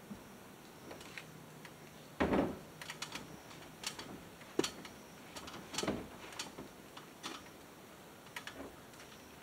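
Irregular clicks and light knocks of a plastic downspout and its fittings being worked into place from a ladder, with a heavier thump about two seconds in and another near six seconds.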